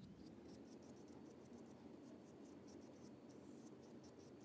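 Faint scratching of a small paintbrush spreading craft paint on paper, in short repeated strokes.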